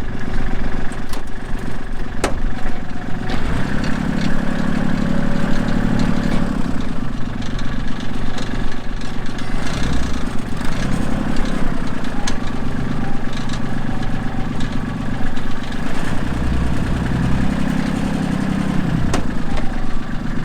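Kubota M59 tractor-loader-backhoe's diesel engine running as it cleans out a barn, its note swelling louder three times under load, with scattered knocks and scrapes.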